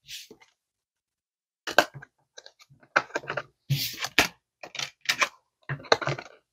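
Tarot cards being shuffled by hand: an irregular run of quick card snaps and light taps.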